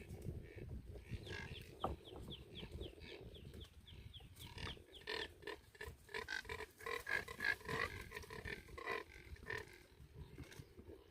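A large flock of Neotropic cormorants (mergulhão) calling together, many overlapping croaking calls. In the first few seconds there is a fast run of short, falling high notes, and a denser bout of calls follows in the middle.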